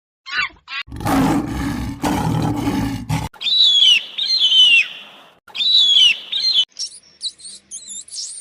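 A big cat roars for about two seconds, a rough sound reaching down low. Then a bird gives repeated whistled calls that slide downward, followed by a run of quick, high chirps.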